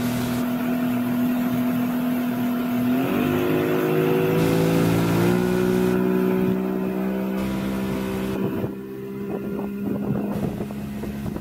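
A small boat's motor running steadily under way, its pitch shifting twice, about three and five seconds in.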